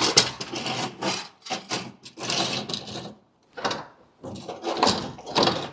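Irregular scraping and rubbing with knocks, as parts of a car's front bumper are worked loose and handled, in a string of short uneven bursts.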